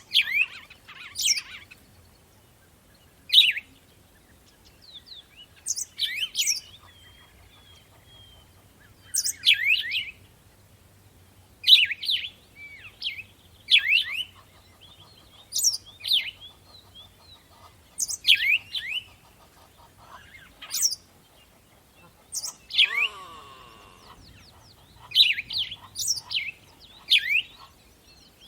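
Songbirds singing in the morning: short, high chirping phrases of quick down-slurred notes, repeated every couple of seconds with quiet gaps between. About two-thirds of the way through, a different, lower buzzy call slides down in pitch.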